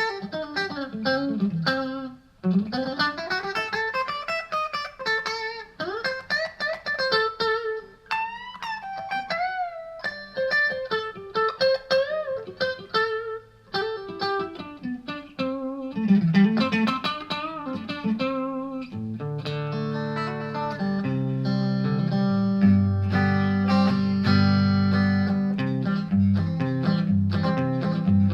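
Fender Modern Player Telecaster electric guitar played through a Vox VT20X amp with a clean tone: single-note blues lines with string bends and slides, then fuller ringing chords from about two-thirds of the way in.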